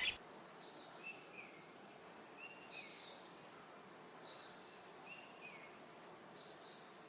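Faint forest ambience with a small bird repeating a short, high chirping phrase of quick stepped notes about every second or two.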